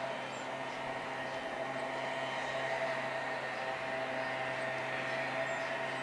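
A steady mechanical hum and hiss that does not change, with a few faint, short, high sounds over it.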